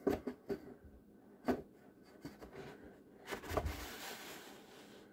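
Handling noise as a foam wing is slid along a spar tube and pushed onto its clip against the fuselage: a few light taps and knocks, then a louder knock about three and a half seconds in followed by a rubbing, scraping sound that fades away.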